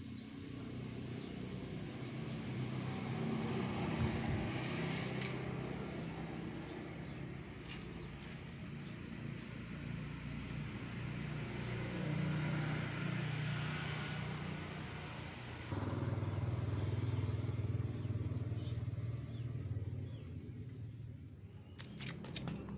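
Electric tank air compressor (MultiPro) running with a steady motor hum, getting louder about two-thirds of the way through.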